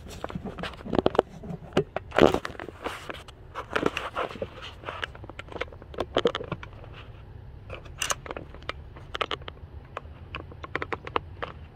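Handling noise in an engine bay: irregular clicks, taps and short scrapes, the loudest about two seconds in, over a low steady hum.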